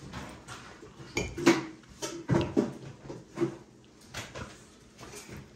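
Metal spoon clinking and scraping against a glass beer mug as chili sauce is dabbed onto its rim: several short, light clinks spread over a few seconds.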